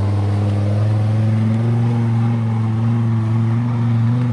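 Engine of a custom tube-frame off-road buggy running hard under load as it drives up a muddy slope, a steady engine note whose pitch rises slowly.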